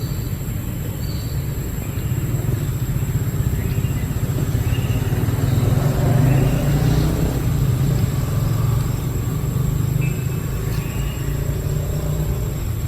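Low rumble of a passing motor vehicle, swelling to its loudest about six seconds in, with a scatter of short high chirps over it.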